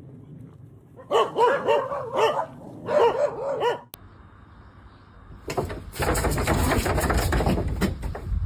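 A dog barking in a quick run of short, high barks from about a second in until nearly four seconds. After a sudden break, a loud, steady rustling noise starts about five and a half seconds in.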